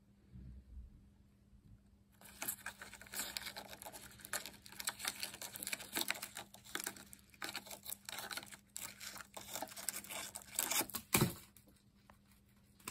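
Large rhinoceros beetles fighting, their claws and hard shells scrabbling and scraping on cardboard and plastic. It starts about two seconds in as a dense scratchy crackle of many clicks, and ends with a heavy thump about eleven seconds in.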